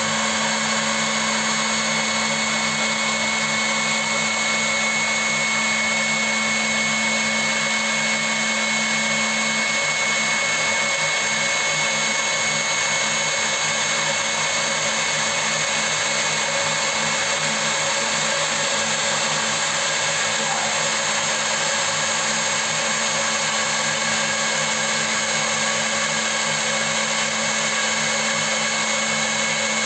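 CNC milling machine running, a steady machine noise with a constant high whine. A low hum in it turns rougher and uneven about ten seconds in.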